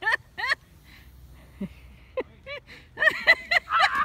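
Canada goose honking: a few short calls, then a fast run of loud honks in the last second as it flies at a person.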